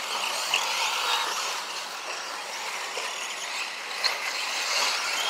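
Radio-controlled trucks racing on a dirt track: a steady mix of motor whine and tyre hiss, with two sharp clicks, about half a second in and near four seconds in.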